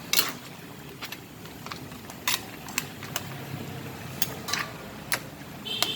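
A cooking utensil knocking and scraping against a pot as the seafood is stirred. The clicks are short and irregular, over a low, steady background hum.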